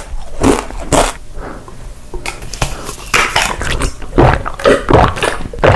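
Close-miked eating sounds: loud, irregular chewing and crunching noises from the mouth, coming thicker in the second half.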